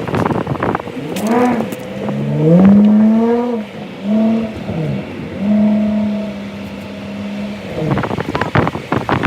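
A car engine being revved: several short blips whose pitch sweeps up and falls back, then a rev held steady for about two seconds. Near the end comes a patch of crackling.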